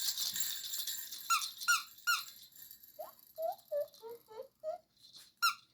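A baby's jingle-bell rattle dies away in the first second, then a squeaky toy is squeezed again and again: three sharp falling squeaks, a quick run of shorter, lower squeaks, and one more squeak near the end.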